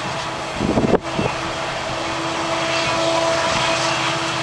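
A Canadian Pacific MAC diesel locomotive approaches at the head of a freight train, giving a steady drone with a low hum under noisy rumble. A short, loud low buffet on the microphone comes about a second in and cuts off sharply.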